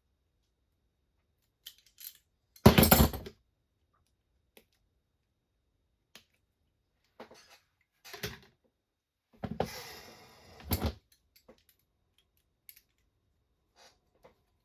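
Small kit parts and tools being handled and set down on a work surface: a few short bursts of clatter, the loudest about three seconds in and a longer rattle near eleven seconds, with light clicks between.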